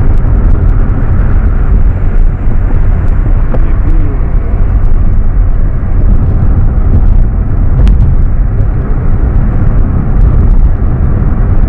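Loud wind buffeting the microphone: a steady, unbroken low rumble with a weaker hiss above it.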